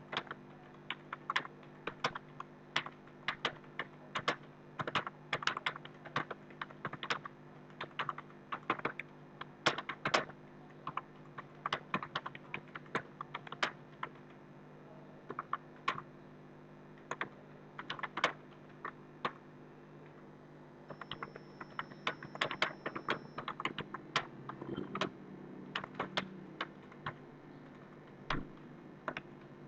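Typing on a computer keyboard: a fast, uneven run of key clicks with a brief lull about two-thirds of the way through, over a faint steady hum.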